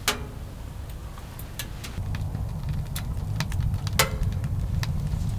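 Irregular sharp clicks and light clinks at a camping wood stove, a handful spread over a few seconds with the loudest about four seconds in, over a low steady rumble that grows louder about two seconds in.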